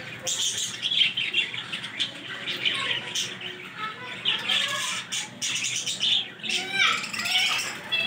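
A small flock of budgerigars chirping and warbling together, a busy, overlapping chatter of short rising and falling chirps, with wings fluttering near the end.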